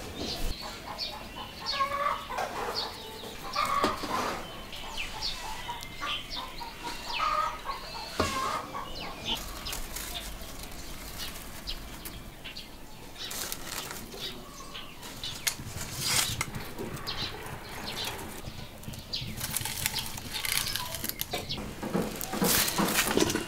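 Chickens clucking now and then, along with rustling and short light clatters that grow busier near the end.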